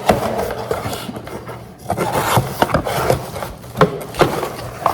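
A package being opened by hand: irregular scraping and rubbing of the packaging, with many short sharp clicks.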